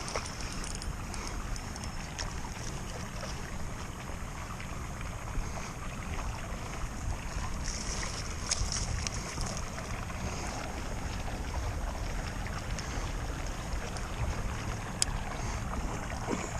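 Steady wind rumbling on the microphone under a light hiss of moving air or water, with a single sharp click about fifteen seconds in.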